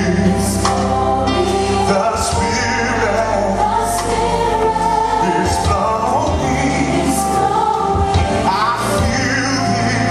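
Gospel worship song playing: voices singing over a band with steady bass and cymbal crashes.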